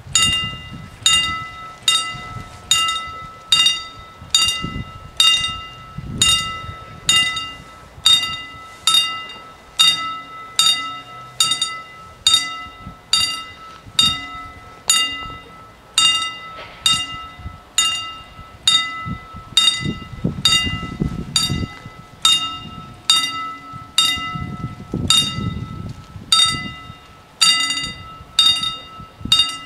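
Railway level-crossing warning bell ringing in regular, evenly spaced strikes, a little faster than one a second, each ringing out briefly. It is the warning that a train is approaching and the barriers are about to come down.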